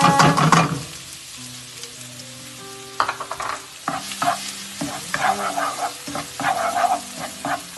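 Minced garlic tipped into hot oil in a nonstick wok sizzles loudly at once, then fries with a steady sizzle. From about three seconds in, a spatula stirs and scrapes the garlic around the pan in repeated strokes.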